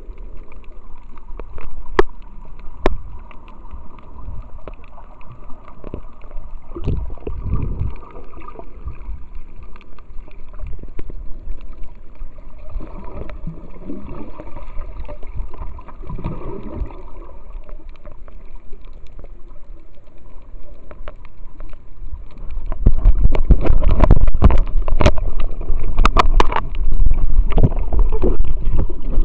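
Underwater sound picked up through an action camera's waterproof housing while snorkelling: muffled swishing and gurgling of water, with a few sharp clicks and slow swells of water noise as the swimmer strokes. Near the end a much louder low rumbling and knocking sets in as the housing is rubbed against the swimmer's skin.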